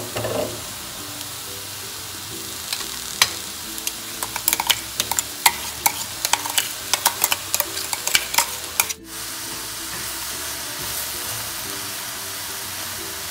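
Vegetables and soya chunks sizzling steadily in a stainless steel frying pan. In the middle stretch, a wooden spoon clicks and taps rapidly against the pan as crushed ginger-garlic-chilli paste is added and stirred in. The sound cuts out for a moment about nine seconds in.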